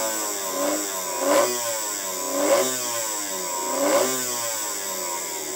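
Antique VoltAmp toy electric motor, cast iron with brass bearing and brushes, running on about 4 volts. Its whine rises and falls in pitch over and over, swelling louder three times.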